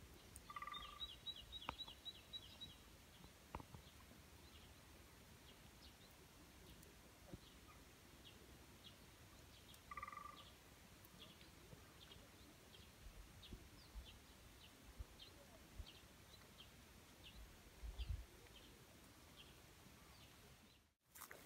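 Faint bird calls over a quiet background. A quick chattering run of high ticks comes about a second in, followed by scattered high chips. A short call comes near the start and again about ten seconds later.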